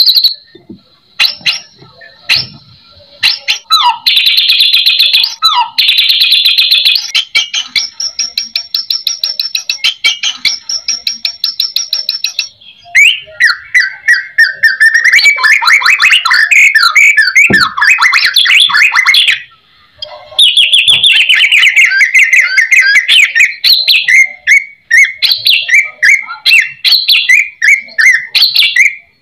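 White-rumped shama (murai batu) in full song: a varied run of rapid, high-pitched trills and quickly repeated notes, rich in mimicked phrases, broken by a few short pauses.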